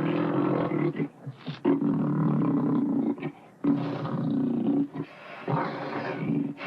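Persian leopard roaring: four long, rough calls, each about a second or more, with short breaks between them, the last one quieter.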